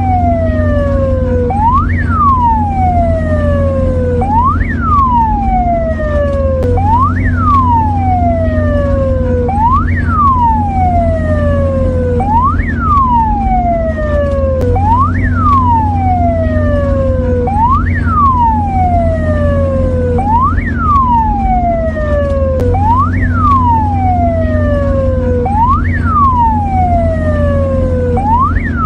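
Mexican ambulance siren wailing in a steady cycle: the pitch shoots up quickly, then falls slowly, repeating about every two and a half seconds. A steady low hum runs underneath.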